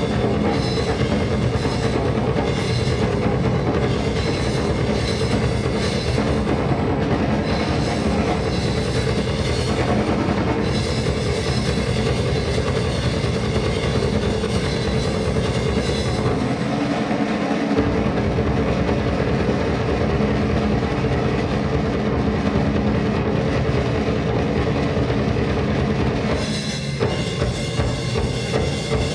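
Loud music with a busy drum kit: rapid drum hits and cymbals over steady sustained notes. The bass drops out for about a second partway through, and the texture changes near the end.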